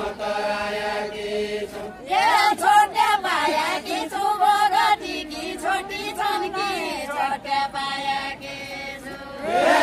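A group of dancers singing a Deuda folk song in long, wavering held lines; the singing dips briefly and comes back louder about two seconds in.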